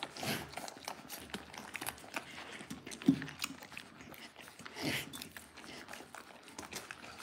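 Dalmatian puppies suckling from their mother: a run of small wet clicks and smacks from the nursing. About three seconds in a puppy gives one brief low grunt.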